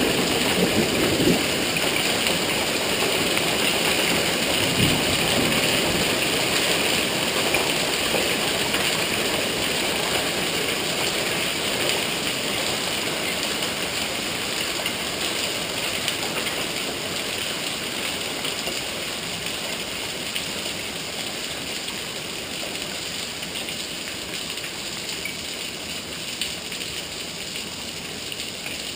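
Hail and rain pelting down on surfaces in a dense, steady patter, slowly getting quieter.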